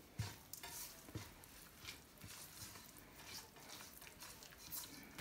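Silicone spatula stirring a thick yogurt and spice marinade in a nonstick pan: faint, irregular soft scrapes and clicks.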